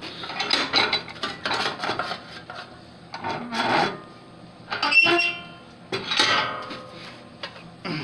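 A sheet-steel patch panel being worked by hand in a bench vise: repeated scraping and rubbing strokes of metal on metal. A brief squealing ring comes about five seconds in, and again around six seconds.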